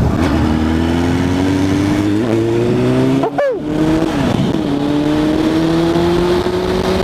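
Suzuki Bandit 600 inline-four engine accelerating hard, its pitch climbing steadily. It dips briefly at an upshift about three and a half seconds in, then climbs again.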